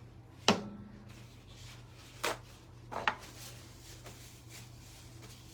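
Three sharp knocks of hard objects on a tabletop: a loud one about half a second in, then two lighter ones around two and three seconds in.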